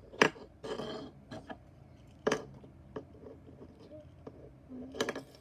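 Clicks and clatter of a fidget toy being handled: a sharp click about a quarter of a second in, the loudest, then a brief rustle, another click a couple of seconds in and a few lighter ticks.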